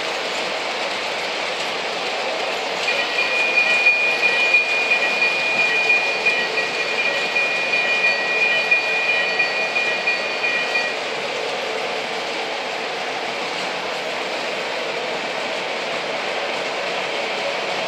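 O-gauge model freight trains rolling on three-rail track, a steady rolling rumble and rattle. About three seconds in a high, steady squeal joins it for roughly eight seconds, then stops.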